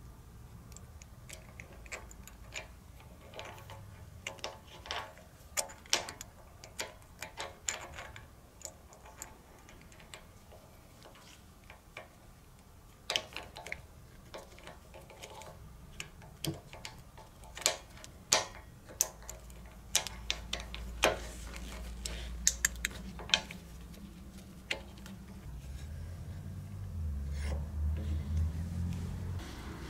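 Irregular small metallic clicks and clinks as steel coil return springs are stretched and hooked onto aluminium drum-brake shoes, some clicks sharp and loud. A low hum grows louder near the end.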